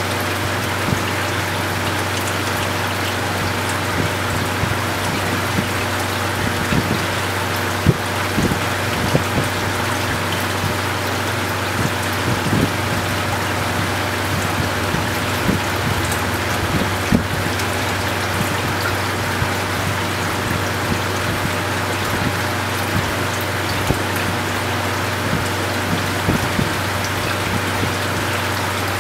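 Aquarium water circulation: an even splashing, trickling hiss over a steady low pump hum, with scattered irregular ticks.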